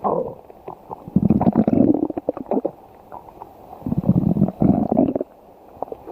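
Stomach growling while digesting pizza. A short gurgle comes at the start, then two long, low, bubbly rumbles follow, one about a second in and one about four seconds in.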